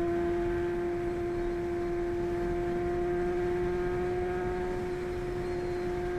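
Honda CBX 750 F's air-cooled inline-four engine running at steady high revs, one high-pitched note held without change.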